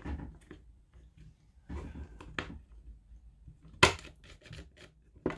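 Handling noises as the trigger switch and its wiring are fitted back into an opened cordless drill's plastic handle: scattered clicks and knocks of hard plastic parts, the sharpest click about four seconds in and another just before the end.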